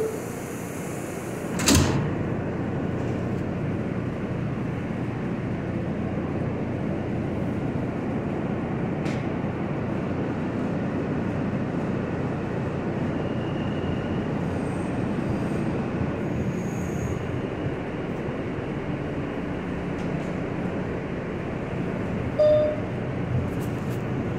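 R160 subway car's sliding doors shutting with a single sharp thud about two seconds in, then the train pulling out and running steadily, an even rumble of wheels and motors heard from inside the car.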